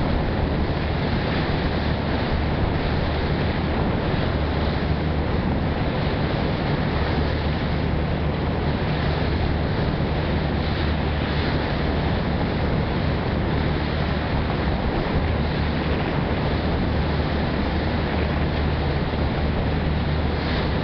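Passenger ferry under way: its engine drones steadily with a low hum, under a constant rush of water and wind buffeting the microphone.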